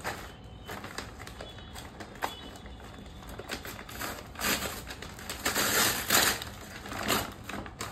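Brown paper mailer being torn open by hand. A few small clicks and rustles come first, then from about four seconds in there are several loud rips and crinkles of the paper.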